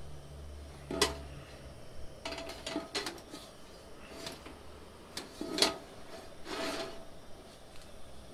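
Paper towel wiping oil around a preheating cast-iron skillet on a gas stove, rubbing across the pan, with several light metal clinks as the pan moves on the grate. The loudest clinks come about a second in and about five and a half seconds in.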